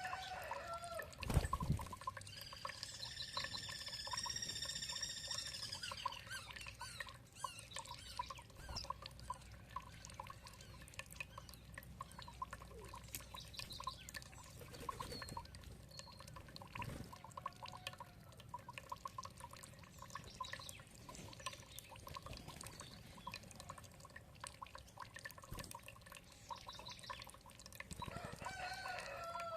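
Water trickling and dripping steadily, with birds calling: a long call of about three seconds starting roughly two and a half seconds in, and short calls at the start and near the end. A low thump about a second and a half in is the loudest sound.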